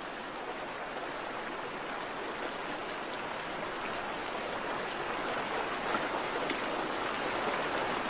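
Steady rush of stream water flowing past the bank, with a few faint clicks in the second half.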